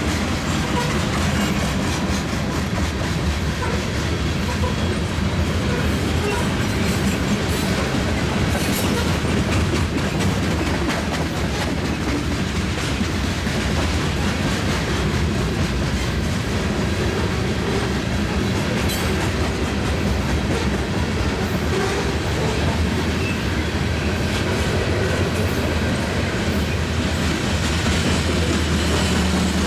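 Freight train of grain hopper cars rolling past slowly, wheels clicking steadily over the rail joints over a continuous rumble of the cars.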